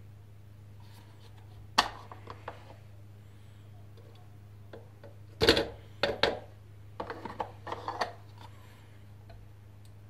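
Hard plastic clicks and knocks from handling the Dolce Gusto Eclipse capsule machine's capsule holder: one sharp click about two seconds in, then a run of knocks and rattles from about halfway through, the loudest near the middle. A low steady hum runs underneath.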